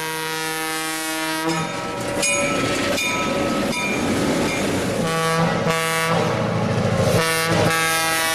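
EMD FP7 diesel locomotive's air horn blowing for a grade crossing: a long blast that cuts off about a second and a half in. Then the train rumbles past with a bell dinging a few times, and the horn comes back with a short blast and two long ones.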